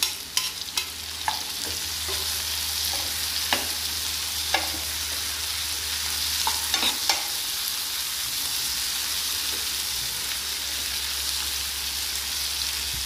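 Chopped tomatoes, onions and green chillies sizzling in oil in a coated frying pan while a steel ladle stirs them, clinking and scraping against the pan. The clinks come now and then over the first seven seconds, then a steady sizzle carries on.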